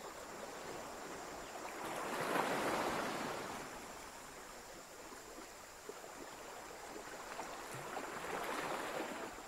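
Sea waves washing onto a rocky, pebbly shore. The surf swells up and falls away twice, loudest about two and a half seconds in and again near the end.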